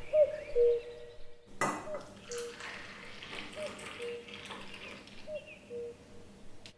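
Coffee poured in a stream into a metal tumbler: a clink about a second and a half in, then about four seconds of splashing, frothing liquid. A low two-note bird call repeats in the background.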